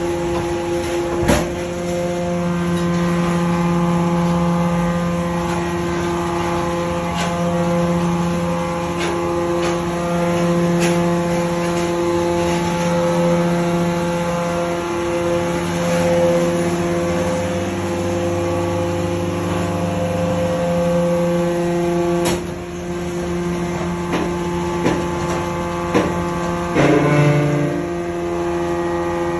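Hydraulic scrap metal baler running: a steady, multi-toned hum from its hydraulic power unit, broken by sharp metallic knocks now and then, the loudest about a second in and another about three-quarters through.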